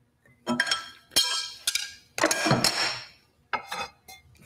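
Steel wrenches clanking and ringing against a table saw's arbor nut and stacked dado head as the nut is tightened and the wrenches are lifted away: several separate metallic clanks, each with a short ringing tail.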